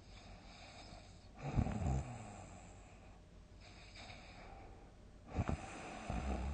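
A sleeping person snoring loudly: two heavy, fluttering snores about four seconds apart, with soft breathing hiss between them.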